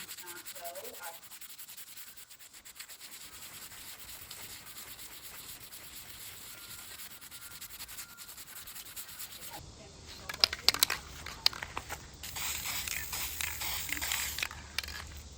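Rubbing and scraping on wood, as in sanding or wiping down the box's wooden parts. It is faint at first; about ten seconds in, a few sharp scratches come, followed by a steady rasping rub.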